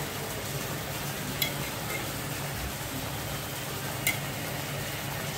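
Melted ghee poured into grated bottle gourd cooking in a hot pan, with a steady sizzle, and two sharp clicks about a second and a half and about four seconds in.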